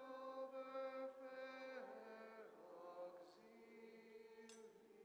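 Slow liturgical chant: a voice holding long, steady notes about a second each, sliding gently from one pitch to the next, fading toward the end. A light metallic clink near the end.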